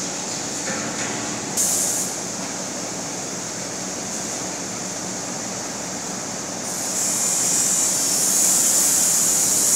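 Nut chopping machine running: a steady motor hum under a hissing rattle, which grows louder about seven seconds in.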